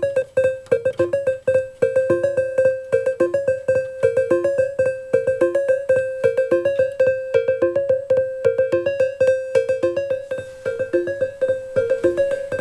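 Roland JP-8080 synthesizer playing a fast repeating sequenced pattern of short notes, about four or five a second, driven by a step sequencer. Its knobs are being tweaked, and about ten seconds in a hiss comes into the tone.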